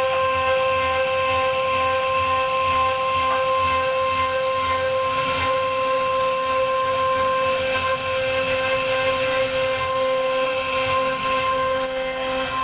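CNC router spindle running with a steady high whine as its bit carves a decorative relief into a wooden door panel, with the rough noise of the cut beneath.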